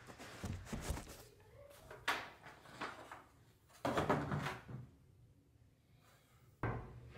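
A few knocks and rustles from handling furniture on a hardwood floor, the loudest about four seconds in and another near the end.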